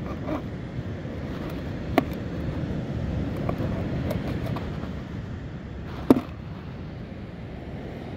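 Steady wind and surf noise on the microphone, with a few taps of a knife on a plastic cutting board while bait is cut; two sharp knocks stand out, about two seconds in and a louder one about six seconds in.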